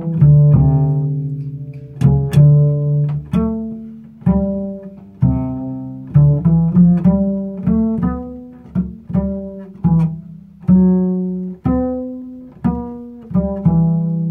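Upright double bass played pizzicato, unaccompanied: a line of plucked low notes, each struck sharply and ringing down before the next, some held for a second or more.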